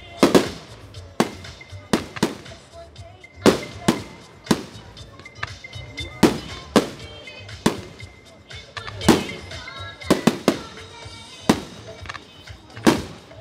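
Aerial firework shells bursting: a string of sharp bangs at irregular intervals, roughly one or two a second, each trailing off in an echo.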